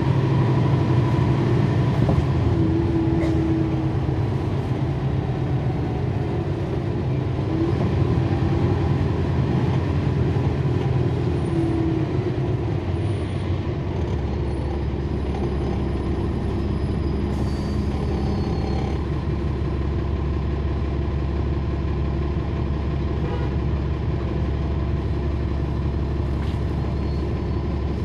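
The bus's Cummins ISL9 inline-six diesel engine running, heard from inside the cabin. About halfway through, the engine note drops lower and stays steady.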